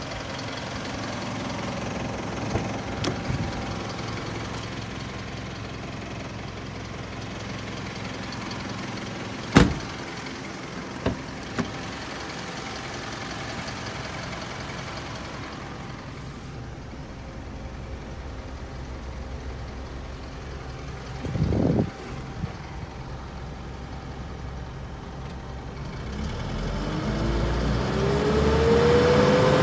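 Isuzu Elf truck engine idling steadily, with a sharp knock about a third of the way in and a short thump later. Near the end the engine is revved and its pitch rises.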